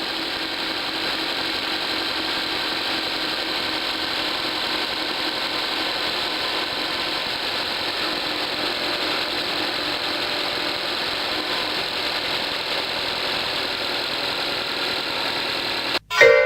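Honda Accord 2.4 four-cylinder engine idling steadily, heard close at the engine cover, with no power-steering pump whine: the pump's inlet O-ring has been replaced, curing the whine and foaming.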